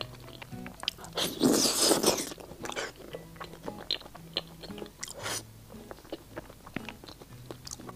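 Close-miked eating of spicy stir-fried seafood: a loud bite about a second in, then wet chewing with many small smacks and clicks, and another short bite a little after five seconds.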